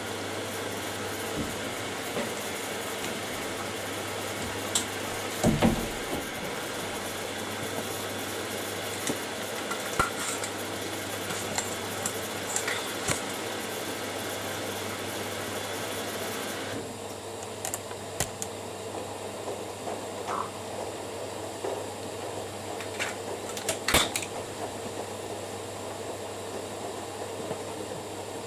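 Two front-loading washing machines in the main wash of quick cycles: drums turning with laundry tumbling, and occasional clinks and knocks. A steady hiss stops suddenly about 17 seconds in.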